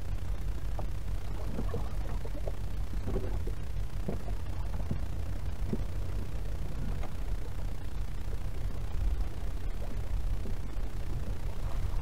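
Rocky seashore ambience: small waves lapping and trickling among the rocks in scattered little splashes, over a steady low rumble.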